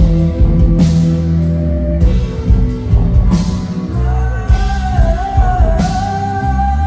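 Rock music with electric guitar, a heavy bass line and drums.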